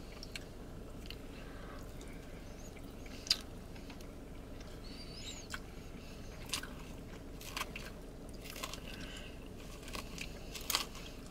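Chewing and crunching of salad leaves, with scattered light clicks as plastic forks hit plastic salad bowls.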